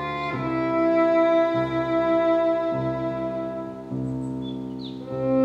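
Background music of bowed strings holding sustained chords that change about every second.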